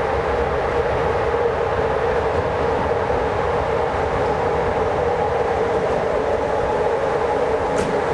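Electric locomotive (CFR class 473) pulling a passenger train slowly into the platform, its running noise steady with a constant hum. A short, sharp click sounds near the end.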